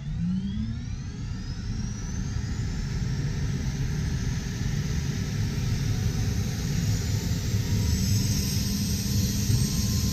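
UH-60M Black Hawk helicopter turbine starting up, heard from inside the cockpit: a whine rising steadily in pitch over a low rumble that slowly grows louder.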